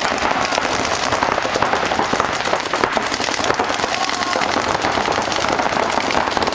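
Paintball markers firing in rapid, continuous volleys: a dense stream of sharp pops, many shots a second, with no pause.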